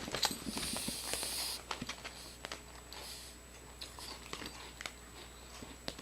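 Crunching and chewing potato chips in the mouth, a run of short crackles that thin out as the bite is chewed down.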